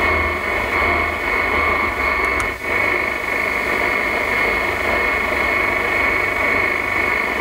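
Audi MMI Basic factory car radio on the medium-wave band between stations: a steady hiss of static with a steady high whistle and no clear programme. About two and a half seconds in the sound briefly drops out as the tuner steps from 558 to 567 kHz.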